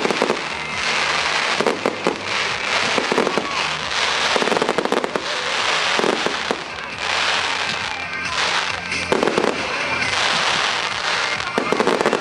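Professional display fireworks going off in quick succession: a dense, continuous stream of bangs and crackling from bursting shells.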